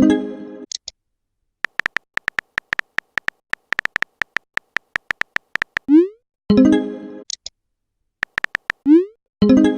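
Electronic chat-app sound effects: a fast run of short high beeps like typing blips, broken twice, about six and nine seconds in, by a quick rising swoop followed by a short chiming tone, like a message being sent or received. A chiming tone also sounds at the very start.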